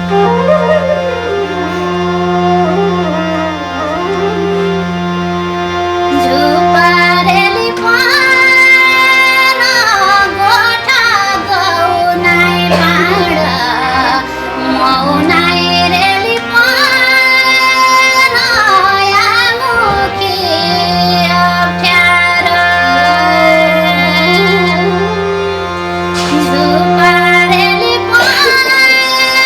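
Nepali folk-song music: a held low drone under a winding, ornamented melody line that bends up and down in pitch.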